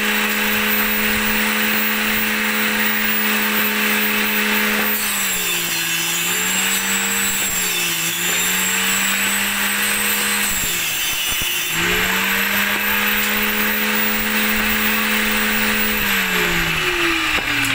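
Small bench-top circular table saw running. Its motor hum drops and wavers under load while it rips a teak plank into thin strips from about five seconds in to about twelve, then picks back up to free-running speed. Near the end the pitch falls steadily as the saw slows down.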